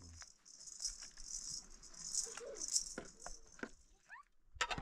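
Insects buzzing in a high, pulsing rattle. A few clinks of plates and cutlery sound near the end as dishes are gathered up.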